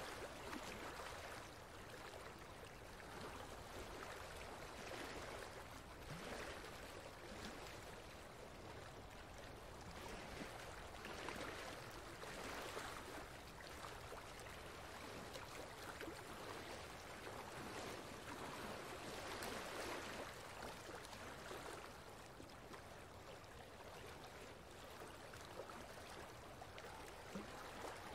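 Faint, steady rushing of flowing water, like a stream, gently swelling and easing every second or two.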